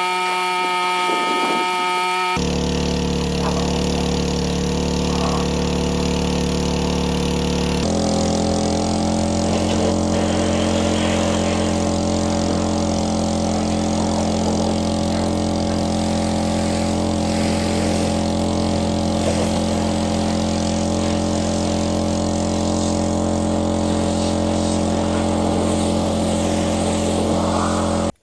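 An engine running steadily at a constant speed; its tone shifts abruptly about two seconds in and again about eight seconds in, then it cuts off suddenly at the end.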